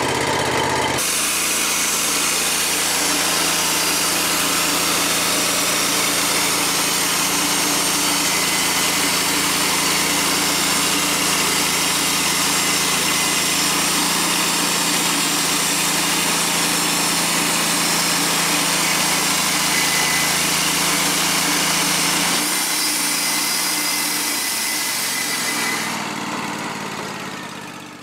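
Wood-Mizer LT40 Wide portable band sawmill cutting through an oak cant, its engine at high revs and the band blade hissing through the wood in one long steady pass. The sound rises sharply about a second in as the saw throttles up, changes a little over 20 seconds in, then winds down and dies away near the end as the cut finishes.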